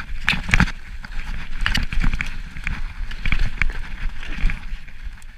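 Mountain bike clattering over rough, rocky, snow-covered trail, with irregular knocks and rattles from the bike as it is ridden downhill.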